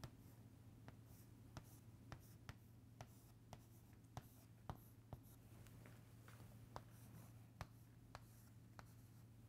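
Faint chalk writing on a chalkboard: the chalk taps and scratches as an equation is written, giving irregular sharp ticks, roughly one or two a second.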